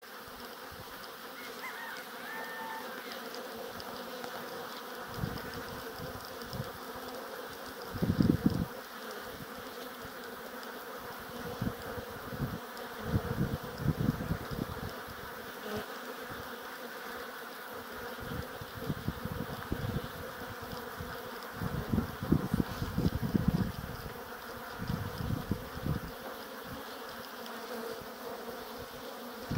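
Honeybees buzzing in flight at a row of hive entrances: a steady hum of many foragers coming and going, still bringing in pollen late in the season. A few louder low bursts stand out now and then, the loudest about eight seconds in.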